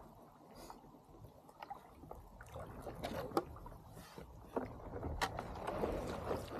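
Stand-up paddleboard being paddled through thin river ice: paddle strokes in the water with scattered sharp clicks and cracks, more of them and louder in the second half, as the board breaks the ice.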